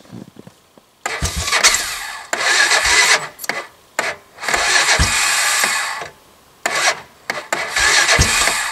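Old 300 quad's electric starter cranking the cold engine in several separate bursts, with short pauses between tries; the engine turns over but does not catch, a hard cold start at about −15 degrees.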